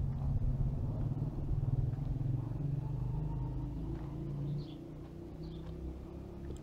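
Low, steady engine rumble that drops in level about four and a half seconds in, with a few faint high bird chirps above it.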